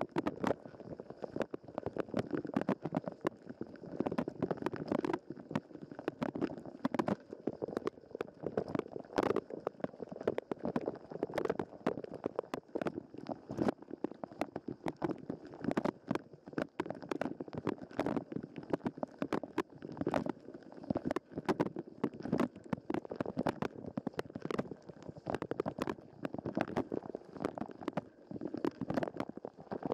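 Dishwasher wash cycle heard from a waterproof sports camera mounted inside it: water spraying and splashing against the camera housing in an uneven, muffled rush, with many irregular sharp taps from the water hitting it.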